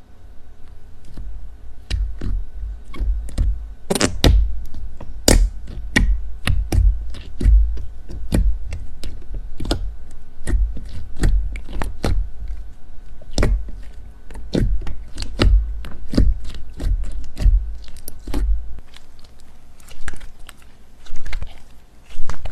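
Slime being pressed and poked by hand, giving an irregular run of sharp clicks and pops over low thuds. The thuds stop a few seconds before the end, and the clicks go on.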